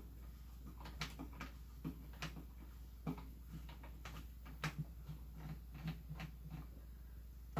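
Phillips screwdriver backing the wood-stock screws out of a Commando Mark45 Tommy gun clone: faint, irregular small clicks and ticks as the driver tip works the screws.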